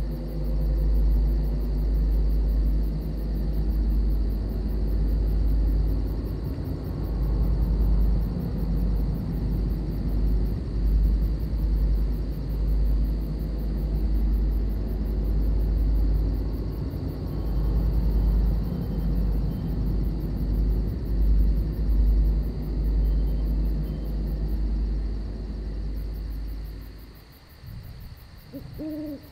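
Long rolling rumble of thunder that swells and eases for most of the stretch, then dies away near the end. Crickets chirp steadily underneath, and an owl hoots right at the end.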